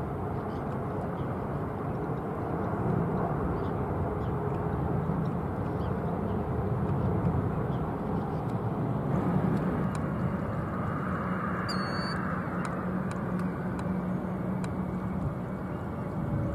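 Distant jet roar of an Airbus A330-900's Rolls-Royce Trent 7000 engines at take-off power as it climbs away: a steady low rumble that swells a little around the middle.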